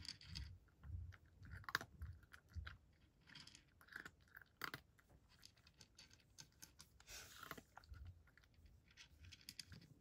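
Faint sound of a cat chewing dry kibble from a wooden dish: an irregular run of small crisp crunches and clicks with soft low thuds of the jaw.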